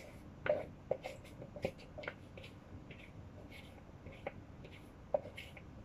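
Faint, irregular taps and light scrapes of a spoon against bowls as the sticky wet ingredients (honey, maple syrup and almond butter) are scraped into the bowl of dry ingredients.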